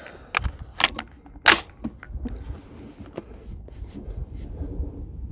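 Sharp clicks and clacks of an AR-15 rifle being handled and readied on a shooting bench: three clear ones in the first second and a half, then a few fainter ticks, over a low wind rumble on the microphone.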